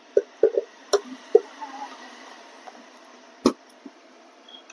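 A large screwdriver working a tight screw that holds an amplifier IC to its metal heat sink: a quick run of sharp metallic clicks in the first second and a half, then one more knock a little past the middle.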